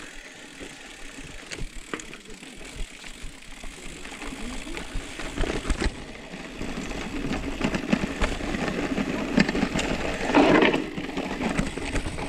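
Mountain bike rolling along a dirt trail: knobby tyres on soil and the bike's frame and parts rattling and clicking over bumps, getting louder from about halfway as the ground gets rougher or the speed picks up, with a brief louder burst about ten seconds in.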